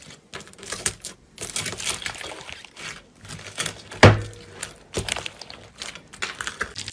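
Slime being squeezed and worked by hand, making rapid, irregular sticky clicks and pops, with a louder click about four seconds in and another about a second later.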